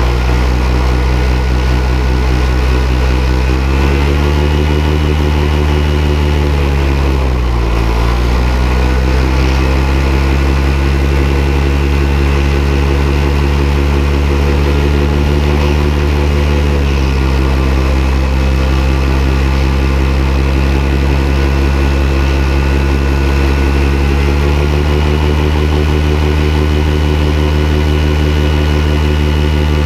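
Paramotor engine and propeller running close behind the microphone, steady but changing with the throttle: pitch rises a few seconds in, dips briefly and recovers about eight seconds in, drops around the middle and climbs again near the end.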